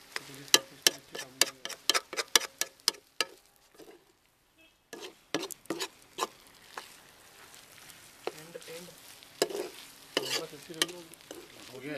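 Metal ladle clinking and scraping against a metal kadai as fried rice is stirred: a quick run of clinks for about three seconds, a short near-silent gap around four seconds, then sparser clinks.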